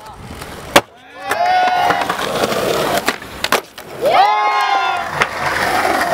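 Skateboards rolling on concrete, with sharp clacks of boards popping and landing three times, about a second in, midway and near the end.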